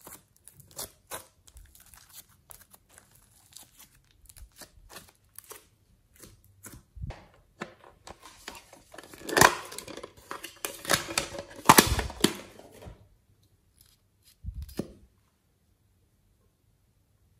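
Soft clay and slime being stretched and torn apart by hand, a dense run of small crackles and clicks. Then a louder cluster of sharp plastic clicks and rattles as a plastic toy case is handled, and a single thump near the end.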